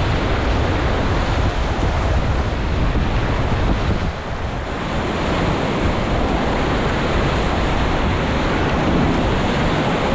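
Rushing water of the Ganges around a raft, a loud steady rush, with wind buffeting the microphone.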